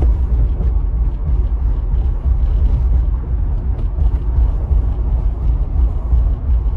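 Loud, steady low rumble with no clear rhythm.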